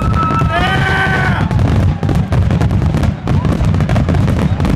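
Fireworks finale barrage: aerial shells bursting in rapid, overlapping succession over a continuous deep rumble, with no gap in the explosions.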